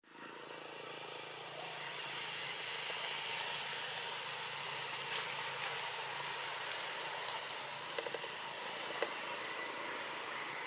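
Steady outdoor forest ambience: a continuous high-pitched hiss that fades in at the start, with a couple of faint clicks near the end.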